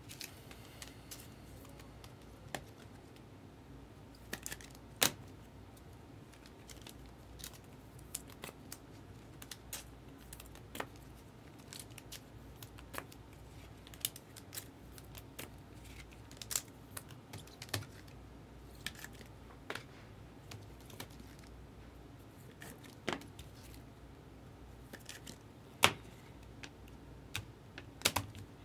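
Computer keyboard typing: sparse, irregular clicks and taps, with a few sharper clicks about five seconds in and again near the end.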